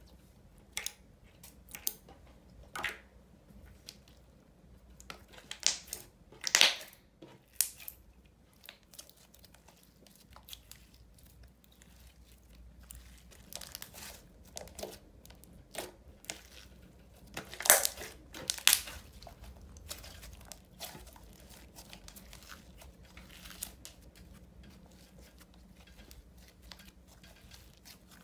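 White slime being squeezed, folded and stretched by hand, giving irregular short crackling pops and clicks. The loudest clusters come about a quarter of the way in and again about two-thirds through.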